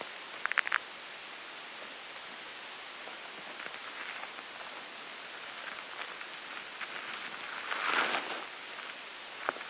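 A steady hiss of rustling noise. About half a second in there is a quick run of four sharp clicks, then faint scattered ticks, and a louder rustling swell near the end.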